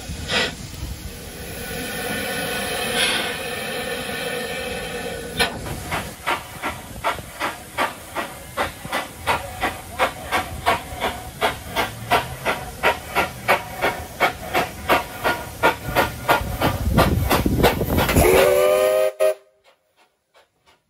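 Mary Ann steam locomotive approaching: steam hissing, then its exhaust chuffing about twice a second, growing louder. Near the end comes a whistle blast, and the sound cuts off abruptly.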